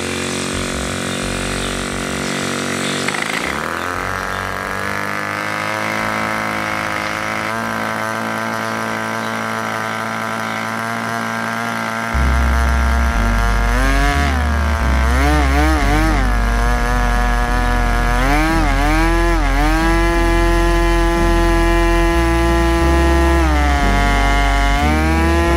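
OS Max 2.5 cc (.15 LA) two-stroke glow engine, just started with an electric starter, running fast with its propeller spinning. About halfway through, its speed starts rising and falling over and over, then holds steady near the end.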